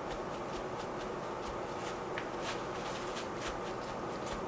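Faint rustling and light crinkles of a paper towel pressed and dabbed on an alcohol-soaked sketchbook page to blot it, over a steady hiss.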